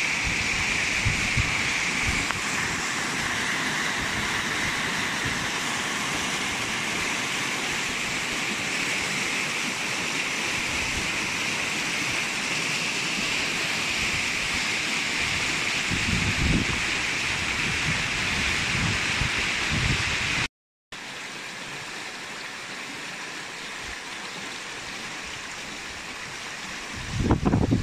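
Fast-flowing spring-fed river rushing over rocks in whitewater: a steady, even rush. About two-thirds through it cuts out for a moment and comes back quieter, and a few low thumps hit the microphone near the end.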